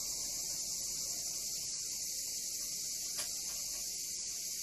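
Steady high-pitched insect chorus, with a single short click about three seconds in.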